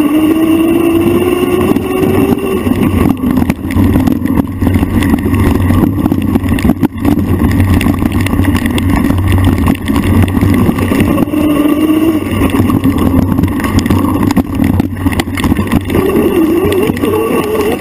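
Four-stroke single-cylinder engine of a Honda CRF150 dirt bike running under varying throttle, its pitch rising and falling as the rider works the trail, mixed with wind and rolling noise.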